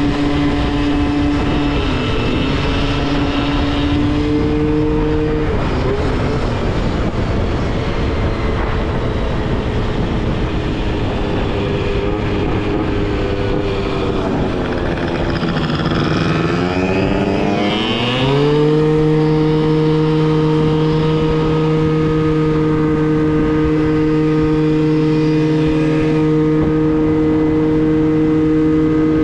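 Moped scooter engine running under way, with wind and road rush. About fourteen seconds in its pitch sinks as the scooter slows, then climbs back, and from about eighteen seconds it holds a steady high note at cruising revs.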